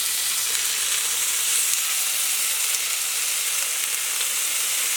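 Masala-marinated chicken tikka skewers sizzling steadily in hot oil on a grill pan.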